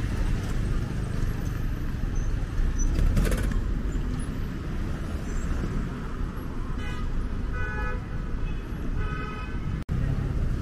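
City street traffic: a steady rumble of passing vehicles, with a few short high-pitched toots about seven to nine seconds in. The sound cuts out for an instant near the end.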